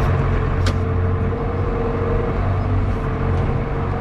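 Old John Deere tractor's engine running steadily, with a single brief click about two-thirds of a second in.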